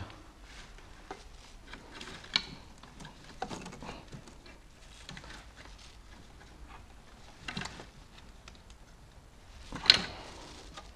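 Scattered light clicks, taps and rustles of hands working the old timing belt off the upper sprockets of a Renault 1.5 dCi diesel engine, with one sharp knock about ten seconds in.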